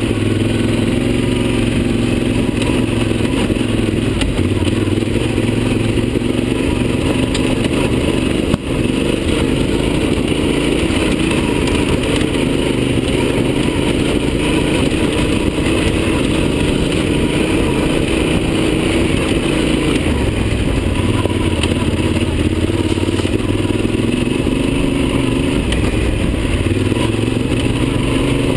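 Yamaha Super Ténéré parallel-twin motorcycle engine running under load on a dirt trail, its pitch rising and falling a little with the throttle, with clatter from the rough ground. A sharp knock about eight and a half seconds in.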